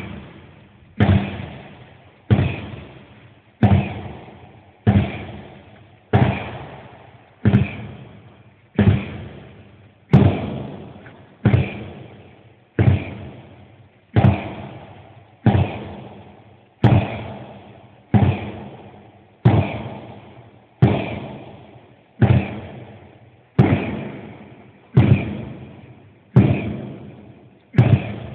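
Sledgehammer blows on a large tractor tyre, a dull heavy thud about every second and a quarter in a steady rhythm. Each blow echoes briefly around a large, bare hall.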